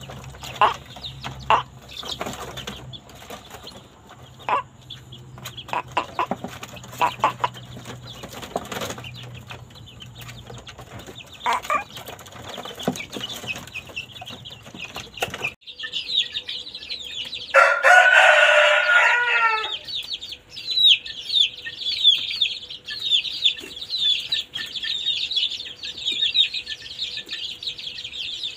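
Young chickens giving short cheeps and clucks over a low hum; after an abrupt change about halfway through, a dense steady chatter of high peeps, and a few seconds later a rooster crows once for about two seconds, the loudest sound.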